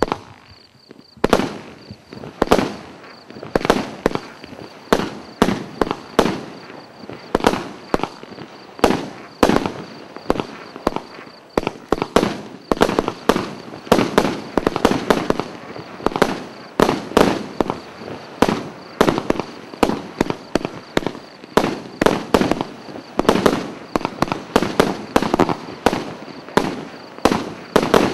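A Hardix Titanium Dessert Eagle 500-gram, 37-shot consumer fireworks cake firing its shots in quick succession, about one to two sharp launch bangs a second, each with a short fading tail as the willow stars burn out.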